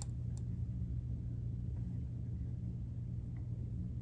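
Steady low electrical hum with faint room noise, and a faint click about half a second in.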